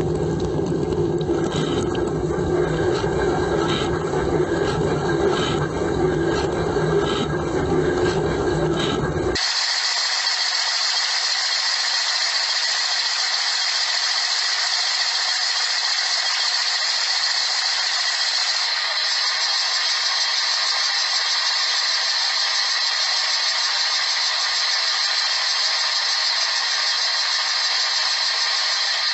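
Dishwasher running: a low pump hum and rumble with a regular rattling knock a little under once a second, which cuts off suddenly about a third of the way in and gives way to a steady high hiss of water spray.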